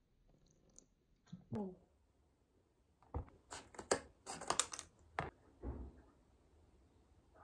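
Kitchen scissors snipping through the corner of a paper soy-milk carton in a quick run of sharp cuts, starting about three seconds in, then a low thud as the scissors are set down on the wooden cutting board. A short glug of soy milk from the carton comes about a second and a half in.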